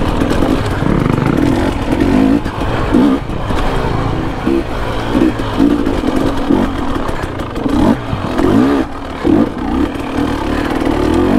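Dirt bike engine revving up and down in quick, repeated throttle bursts as it picks its way over rocks, its pitch rising and falling every half second to a second.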